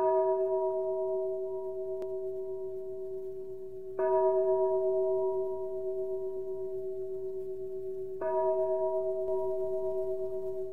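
A resonant bell struck three times about four seconds apart, each stroke ringing on with a slow wavering pulse and fading until the next strike.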